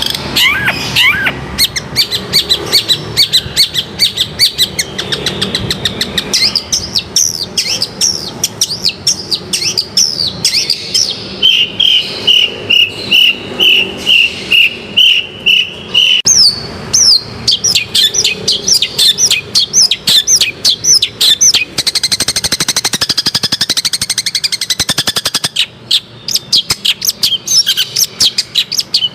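Long-tailed shrike (cendet) singing non-stop: a rapid, varied chatter of sharp notes. In the middle it gives a run of about a dozen evenly spaced repeated notes, and later a denser, harsher stretch.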